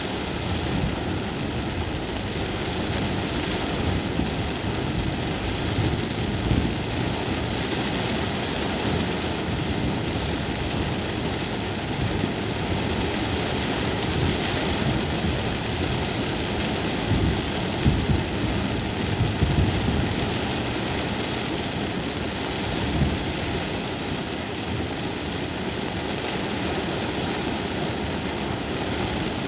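Heavy rain beating on a car's roof and windscreen, heard from inside the cabin, over the car's engine running as it drives slowly. A few low thumps come just past the middle.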